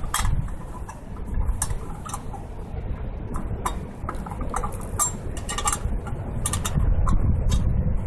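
Irregular metallic clicks and knocks of gloved hands working a removable silencer insert in a Nissan Skyline HCR32's muffler outlet, over a low rumble.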